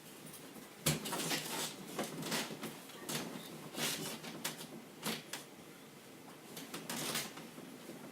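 Handling noises: a sharp knock about a second in, then irregular clicks, knocks and rustling as objects are moved about.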